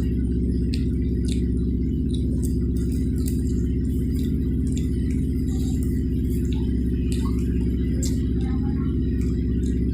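Steady low machine hum running unchanged throughout, with scattered faint clicks and smacks from eating grilled fish.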